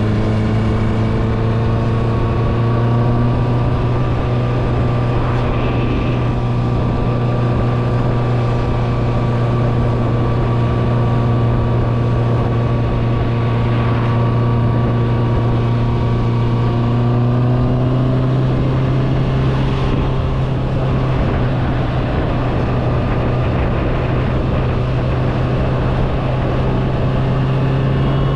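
Honda CBR650R's inline-four engine with an Akrapovič exhaust, running at a steady cruise. The note holds mostly level and rises slightly near the end.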